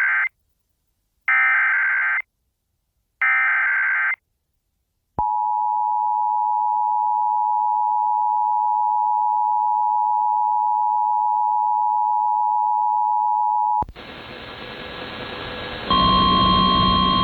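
Emergency Alert System SAME header: three screechy data bursts, about one second each and two seconds apart. Then the EAS attention signal, a steady two-tone (853 and 960 Hz) beep held for about eight and a half seconds that cuts off abruptly. After it comes a hiss of static, with a louder steady tone joining over it near the end.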